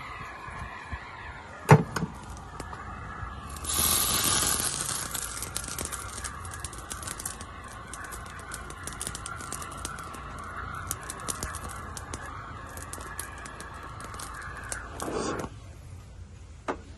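Gas torch flame firing into a crucible of gold and borax being melted: a steady hiss with crackling that turns up sharply about four seconds in and cuts off suddenly about a second and a half before the end. A single sharp knock just under two seconds in.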